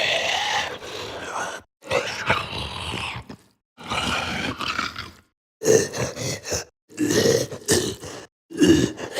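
Monster vocal sound effects: about six separate groans and growls, each a second or so long, with brief silences between them; the last few come in choppy pulses.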